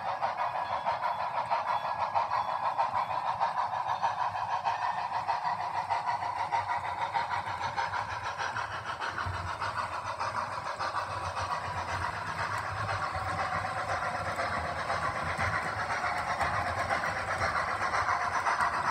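HO scale model train double-headed by two steam locomotives running on the layout track: a steady whir and rattle of motors and wheels that grows a little louder near the end as the train approaches.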